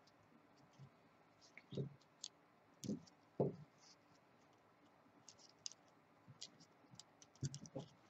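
Faint handling noises as green floss is wound around beaded wire flower stems: scattered small clicks and scratches, with a few louder dull knocks near two, three and a half, and seven and a half seconds in.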